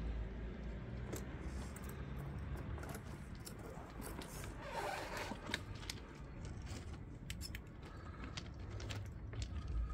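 Absima Sherpa radio-controlled scale crawler driving slowly over loose river stones: pebbles clicking and crunching under its tyres, over a low steady hum.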